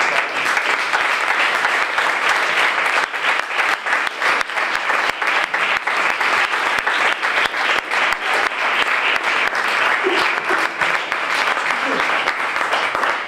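Audience applauding, a dense, steady clapping of many hands that dies away right at the end.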